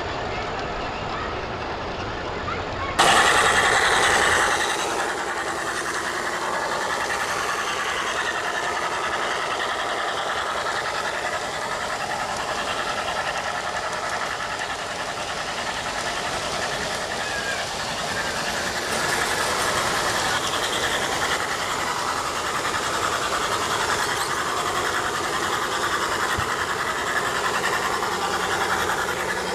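G-scale model trains running on outdoor garden track, their small motors and wheels going steadily, with background chatter from people nearby. The sound gets suddenly louder about three seconds in and settles again a second or so later.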